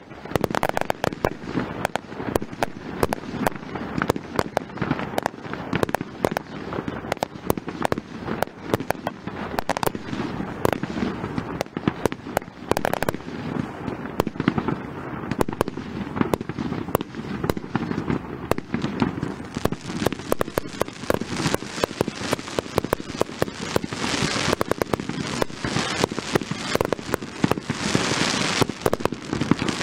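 Aerial fireworks going off in a dense, continuous barrage of bangs and crackles. Twice near the end a sharper hissing crackle swells up.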